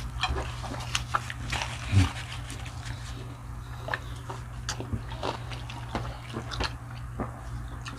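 Close-miked eating sounds: chewing with wet lip smacks and small clicks, one louder mouth sound about two seconds in, over a steady low hum.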